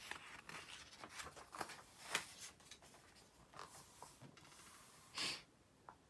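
A page of a paperback workbook being turned and pressed flat: a run of soft paper rustles and crinkles, the loudest about two seconds in, then a short hissing rush about five seconds in.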